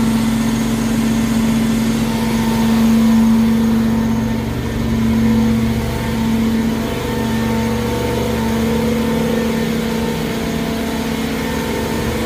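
Truck-mounted carpet-cleaning unit running steadily, its engine and vacuum blower giving a constant hum that swells slightly now and then.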